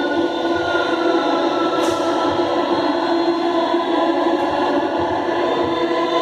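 Music of sustained, choir-like voices holding long, steady chords.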